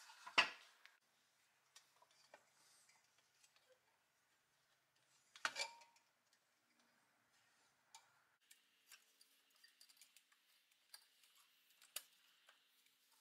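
Small metal clicks and taps of needle-nose pliers and a steel pin against the pressed-steel bracket of a Doepke Heiliner toy as the pin is worked into place. A louder knock comes about half a second in and another cluster of knocks about five seconds in; the rest is faint scattered ticking.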